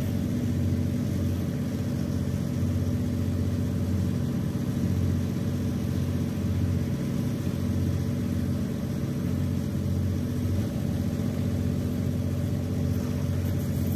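Steady low mechanical hum, like an engine running at a constant speed, with no change in pitch or level.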